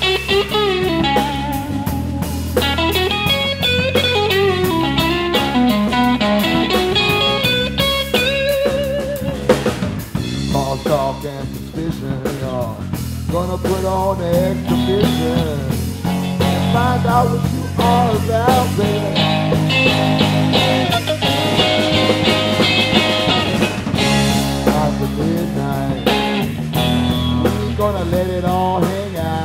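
Live blues-rock band: a Stratocaster-style electric guitar plays a lead line full of bent notes over bass guitar and drum kit.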